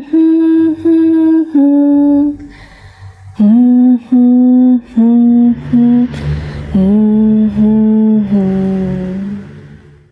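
A woman humming a slow, gentle tune in three short phrases of held notes, each phrase lower in pitch than the one before, fading out near the end.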